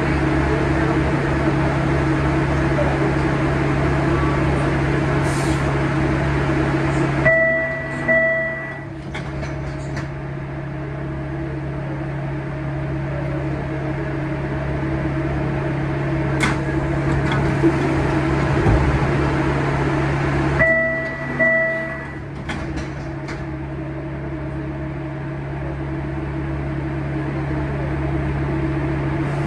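Steady low hum of a subway station platform. A short electronic chime of two identical beeps sounds twice, about 7 seconds in and again about 13 seconds later.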